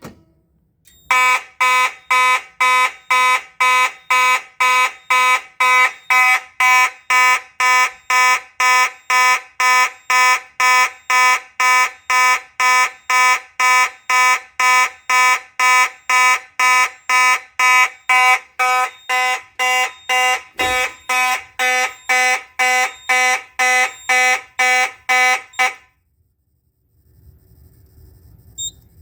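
Simplex 2901-9838 fire alarm horn sounding a march-time pattern, about two blasts a second, set off by a pulled pull station. It cuts off suddenly about 26 seconds in as the audible is silenced while the strobe stays on.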